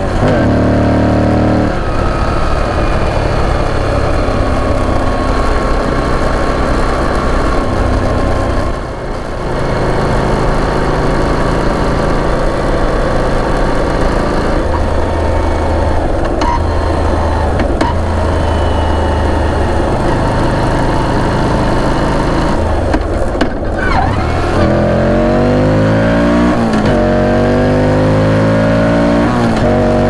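Moto Guzzi V85 TT's 853 cc air-cooled transverse V-twin running under way, heard from the rider's seat. It holds a steady cruise, eases off briefly about nine seconds in, then accelerates near the end, its pitch climbing, dropping back at an upshift, and climbing again.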